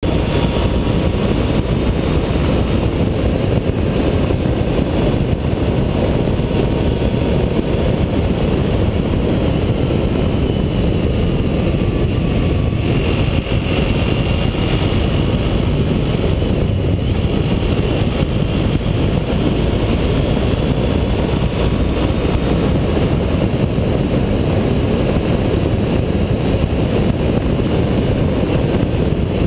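Honda ST1300 sport-touring motorcycle cruising at road speed: a steady, loud rush of wind over the microphone mixed with the V4 engine's drone and tyre noise, with a faint whine that slides up and down in pitch now and then.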